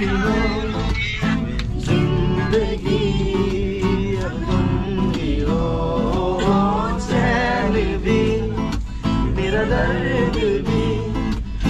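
A man singing while strumming an acoustic guitar, over a steady low rumble.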